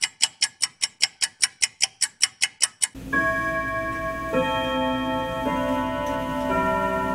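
Rapid, even ticking, about five ticks a second, that stops suddenly about three seconds in. Then come slow, sustained piano chords, changing about once a second.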